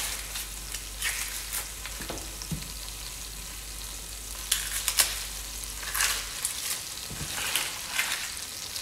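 Sliced onions sizzling in olive oil in a pan: a steady hiss with scattered crackles.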